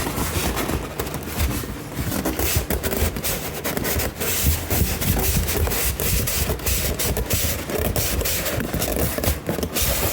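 Cardboard shipping box and styrofoam packing being handled and rummaged through: a continuous, irregular run of scraping, rubbing and knocking.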